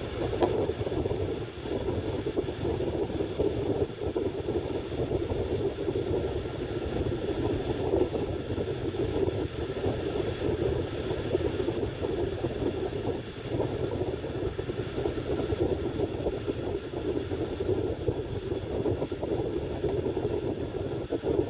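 Train running on the track, a steady rumble that goes on unbroken.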